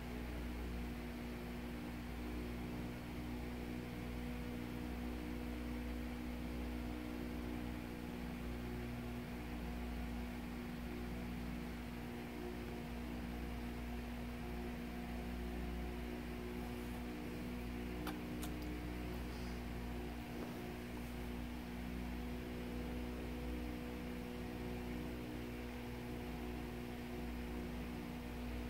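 Steady electrical hum with a low rumble and hiss, its pitch unchanging, and a couple of faint clicks about eighteen seconds in.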